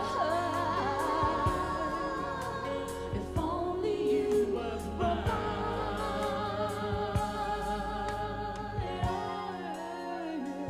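Woman's solo voice singing a soul ballad live, with bending runs and held notes over band accompaniment of bass and light drums. The bass drops out about nine seconds in.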